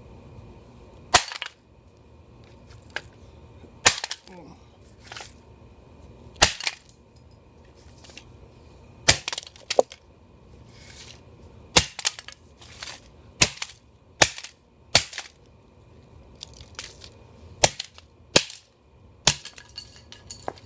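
Sledgehammer blows smashing an Xbox One S controller's plastic shell: about a dozen hard, sharp cracking impacts at uneven gaps of roughly one to three seconds, with smaller knocks between them.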